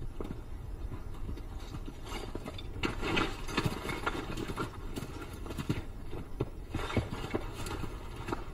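Bharal (Himalayan blue sheep) hooves clattering and scraping on rocky cliff ledges as the animals scramble about, in many short knocks. There are louder bursts of scrabbling about three seconds in and again about seven seconds in.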